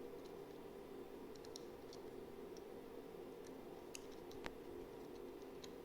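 Faint, scattered small plastic clicks and taps from a GoPro Hero 8 being handled, one sharper click about four and a half seconds in, over a steady low hum.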